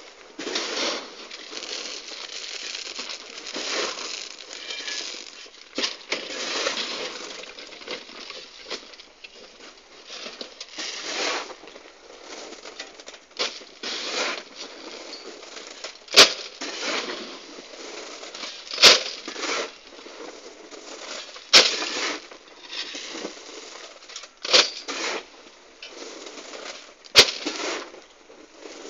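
Stone chips being shovelled and spread by hand over freshly sprayed bitumen: gravelly crunching and pattering in repeated swells. In the second half come sharp clicks about every two and a half seconds.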